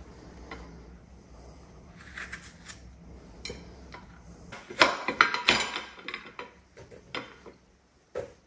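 Kitchen handling clatter: a plastic apple corer-slicer and a paring knife clicking and knocking against a ceramic plate, and apple slices dropped into a pot. Soft handling at first, then a run of sharp knocks about five seconds in that dies away near the end.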